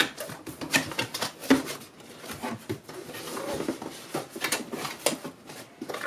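Cardboard box being handled and opened by hand: irregular scrapes, taps and rustles of the flaps and the packing inside.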